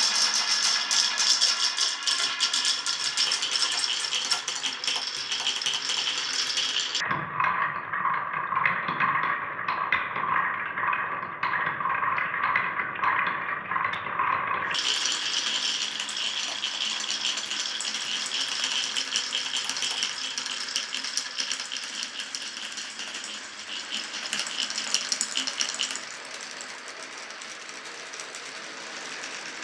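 Glass marbles rolling and clattering down a wooden marble run in a dense, continuous rattle. About seven seconds in the sound turns duller and lower; about fifteen seconds in the bright clatter returns, thinning and getting quieter near the end.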